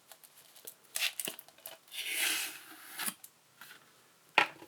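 A plastic Blu-ray case in a cardboard sleeve being handled: a few light clicks and taps, a sliding rub of card against plastic about two seconds in, and a sharper knock near the end.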